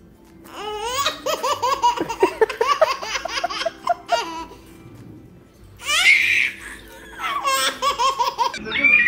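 Baby laughing in quick, repeated belly laughs, in two runs, with a high squeal about six seconds in between them.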